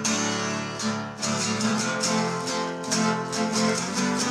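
Acoustic guitar strummed chords in an instrumental passage between sung lines.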